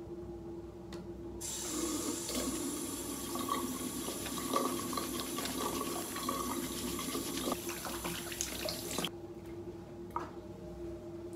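Water running from a bathroom sink tap, turned on about a second and a half in and shut off abruptly about two seconds before the end.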